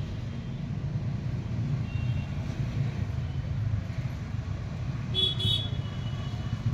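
Steady low rumble of street traffic, with a brief high-pitched sound about five seconds in.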